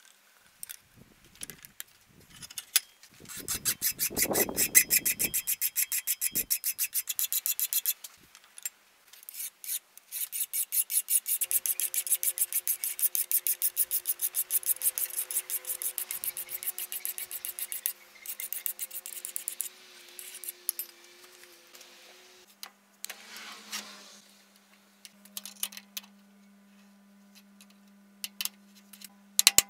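Hand file rasping back and forth across the rusty steel blade of a drawknife held in a bench vise, in two long runs of fast, even strokes. Near the end only scattered quieter scrapes over a faint steady hum remain.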